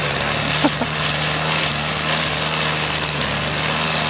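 Small gasoline snowblower engine running steadily at constant speed.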